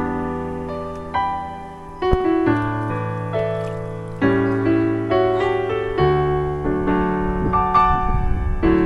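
Slow piano music: notes and chords struck and left to fade, a new chord about every second or two.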